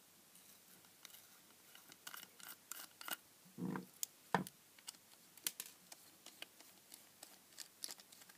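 Precision screwdriver turning out the small screws that hold a circuit board in a plastic power bank case: scattered faint clicks and scrapes, with two louder knocks near the middle.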